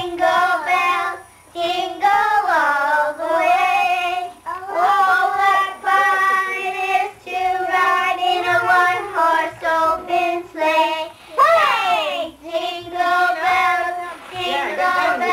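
Group of young children singing a song together in long held phrases, with short breaks between them.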